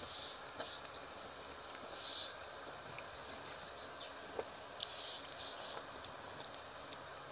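Eating by hand: fingers squishing rice and curry on the plate, and wet chewing and lip smacks, with a few sharp clicks.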